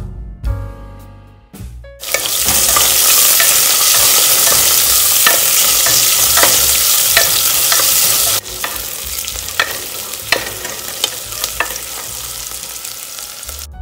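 Sliced onion sizzling loudly in hot oil and ghee in a pressure cooker, stirred with a wooden spatula that clicks and scrapes against the pot. The sizzling starts about two seconds in, once background music stops, and drops in level a little past halfway.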